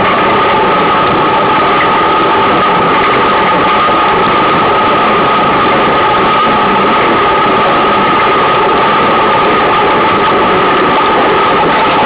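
Loud, steady rushing noise with a constant two-tone hum, from a camera's microphone carried on a moving bicycle: wind and road noise.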